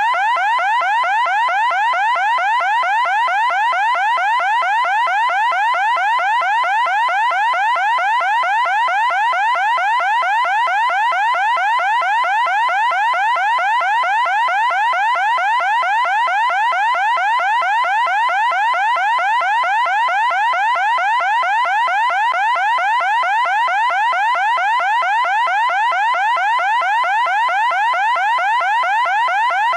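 Loud electronic siren: a pitched tone sweeping upward again and again, about three rising sweeps a second, without a break.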